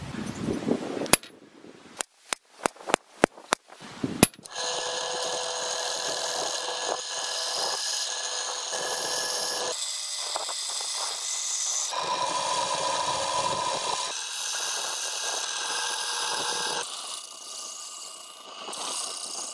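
About eight sharp taps in quick succession, then a drill press boring holes in a thick brass disc with a twist drill: a steady machine whine with several tones, shifting at a few points and falling quieter near the end.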